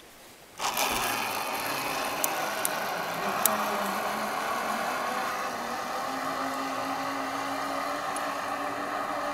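Zip-line trolley pulleys rolling along a steel cable as a rider slides down the line: a steady whirring hum that starts suddenly about half a second in, with a few faint clicks.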